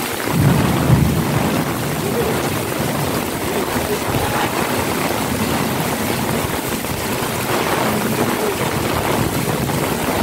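Heavy rain falling steadily in a downpour, a dense even hiss, with a low rumble near the start.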